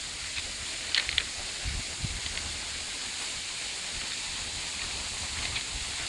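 Footsteps crunching on railway track ballast, a few crisp steps, with wind rumbling on the microphone over a steady high outdoor hiss.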